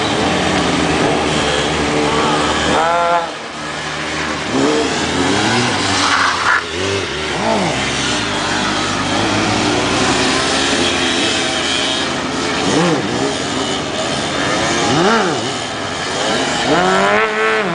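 Motorcycle engines revving during stunt riding: repeated throttle blips that rise and fall in pitch, with a long rising rev near the end.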